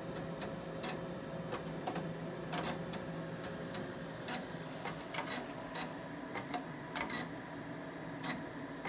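QumeTrak 842 8-inch floppy drives stepping their heads while copying and verifying files: irregular clicks and ticks as the head stepper seeks between tracks, over a steady hum.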